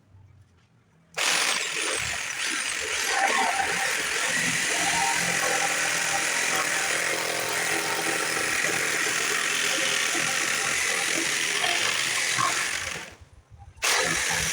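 A power tool running steadily, starting about a second in, stopping briefly near the end and starting up again.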